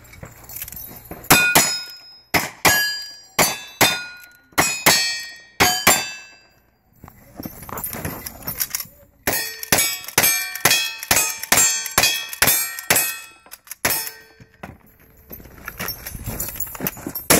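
Rapid gunfire at steel targets, each shot followed by the ringing clang of struck steel. One string of about ten shots runs for some five seconds, then after a short pause a second, faster string of shots and rings follows.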